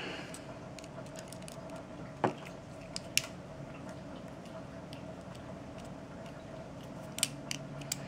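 Small scattered clicks and taps of a precision screwdriver working a tiny screw into a phone's plastic charging-port module, with a sharper click about two seconds in. A faint steady hum runs underneath.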